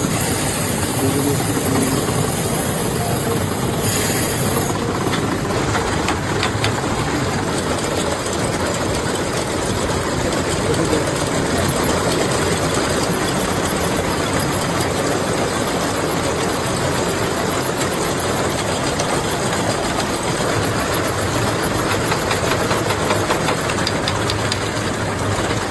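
Factory machinery running steadily: a dense, even mechanical noise with hiss, and a brief sharper hiss about four seconds in.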